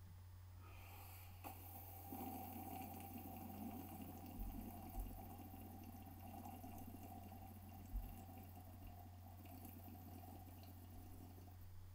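A person drinking from a glass: faint liquid and swallowing sounds over a steady low electrical hum, with a few soft knocks.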